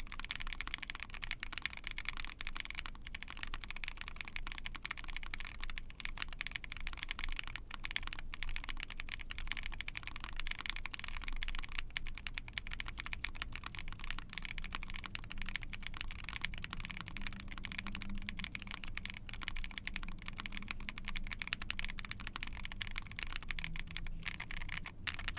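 Steady, fast typing on a mechanical keyboard fitted with lubed Sangria linear switches (long-pole POM stem, HPE housings, double-stage springs) in a POM plate, a deeper-leaning typing sound with a clean bottom-out.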